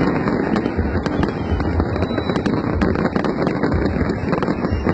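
Fireworks display: a dense, continuous barrage of bangs and crackling bursts, many a second, with no let-up.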